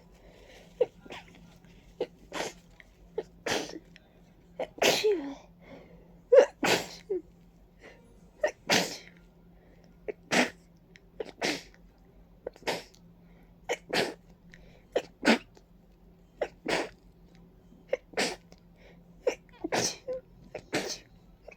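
A long fit of wet, congested human sneezes, one about every second or so, with a bigger cluster of them around a quarter of the way in. The sneezing comes from a stuffy, runny nose, which the sneezer puts down to ragweed and dust allergy.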